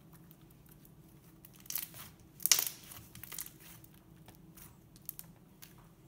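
Thick slime being kneaded and stretched by hand on a flat mat, giving a few short crackles and sticky sounds, the loudest about two and a half seconds in, then a few faint clicks.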